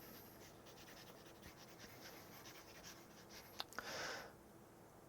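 Faint scratching of writing strokes, then two sharp clicks and a short hiss about four seconds in.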